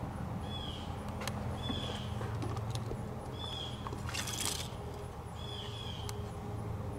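Background ambience: a steady low hum, with a short high chirp repeating about once a second and a brief hiss about four seconds in.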